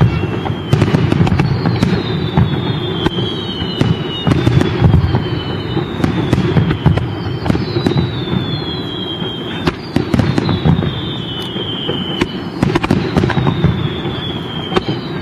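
Aerial fireworks shells in a rapid barrage: repeated sharp bangs over dense crackling, with a high whistle that falls in pitch about every two seconds.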